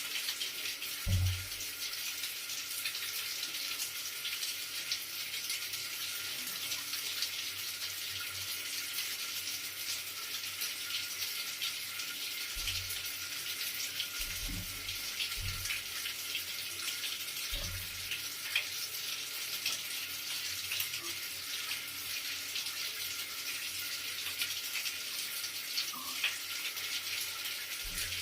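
Running water flowing in a steady, even rush, with a few soft low thumps, the strongest about a second in.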